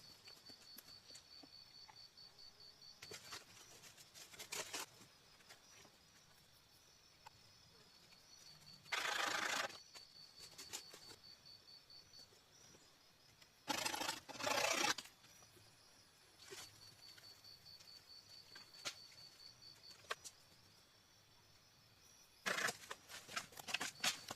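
Rustling and crunching of wood and moss being handled in bursts: a short one near the middle, a longer double burst a little later and a cluster near the end. A faint high pulsing trill sounds in the background at times.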